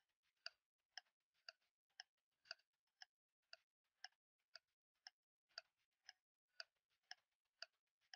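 Faint clock ticking, two even ticks a second: a tick-tock sound effect for a countdown timer running down.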